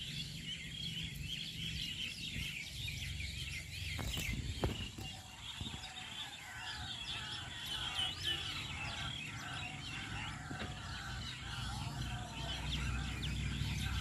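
A flock of birds calling together at dusk as they come in to roost: a dense, continuous chorus of overlapping chirps and chatter, with a low steady rumble underneath.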